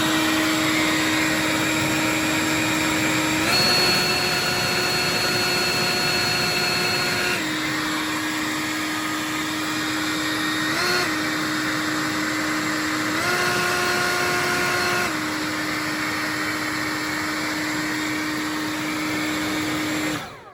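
Greenworks 82V commercial battery-electric leaf blower running with a steady whine. Its motor speeds up to a higher pitch twice for a few seconds each, with a brief blip between. It cuts off suddenly near the end.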